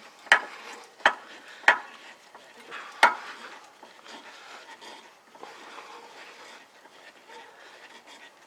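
Car scissor jack being cranked by hand with its metal jack rod, raising the car: four sharp metal clinks in the first three seconds, then quieter scraping and creaking as the turning goes on.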